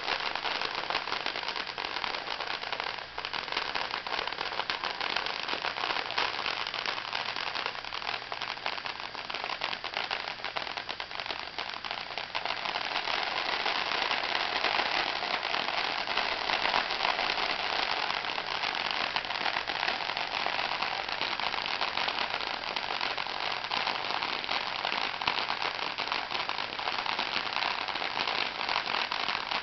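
Fireworks packed into a homemade effigy burning: a continuous crackling hiss of spraying sparks, made of countless fast tiny pops. It grows a little louder about halfway through.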